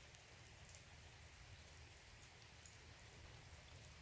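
Near silence: a faint steady low rumble with a few scattered faint ticks.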